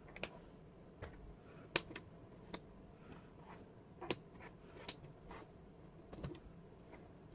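Wooden jigsaw puzzle pieces clicking and tapping on a hard table as they are picked up, shuffled and set down. About nine sharp, light clicks come at irregular intervals.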